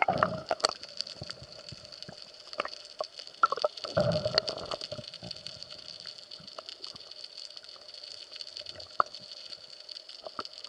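Water gurgling and sloshing in two bursts, at the start and about four seconds in, over scattered sharp clicks and a steady hiss.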